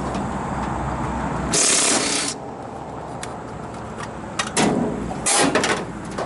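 A steady low hum stops about one and a half seconds in, and a loud hiss lasting under a second starts and stops abruptly. Scattered clicks and two short bursts of clattering work noise follow.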